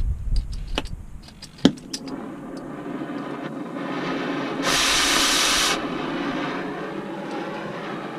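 A few clicks and taps, then metal-cutting equipment starts a steady hiss about two seconds in. Near the middle a louder, brighter hiss comes on suddenly, lasts about a second and cuts off, leaving the steady hiss running.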